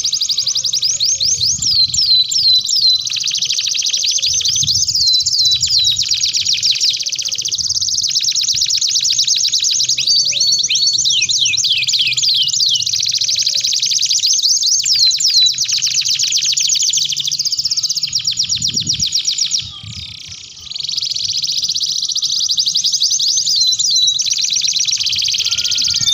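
Domestic canaries singing a long, continuous song of very rapid trills and rolls, high-pitched, with a short break about twenty seconds in.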